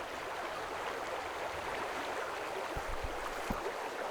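Flowing river water: a steady rushing wash of current, with a few soft low bumps about three seconds in.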